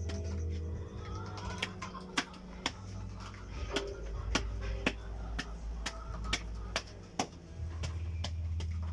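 A run of sharp, irregular clicks and taps, about two a second, over a steady low rumble.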